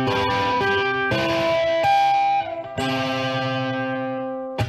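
Closing music on a plucked string instrument of the guitar family: a few single notes, then a chord about three seconds in that rings on and slowly dies away, ending with a short sharp click just before the music cuts off.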